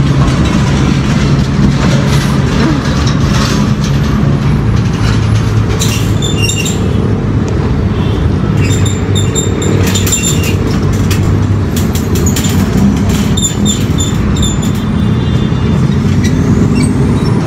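A motor vehicle's engine running nearby with a steady low hum, with traffic noise. The wire shopping cart clinks and rattles several times, around six, nine and fourteen seconds in, as someone climbs into it.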